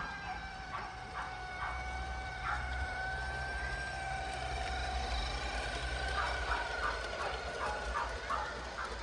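Garden-railway model of a DB class 218 diesel locomotive running with its coaches: a steady high whine from the drive and running gear over a low rumble on the track. Short chirps, like birds, come in bursts, more often in the second half.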